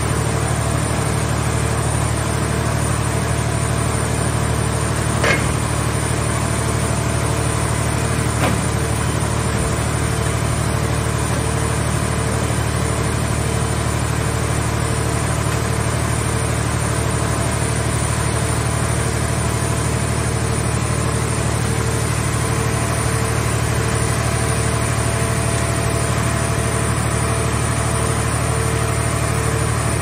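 Car shell baler's power unit running steadily with a low hum and a faint pulsing whine over it. Two brief knocks come about five and eight seconds in.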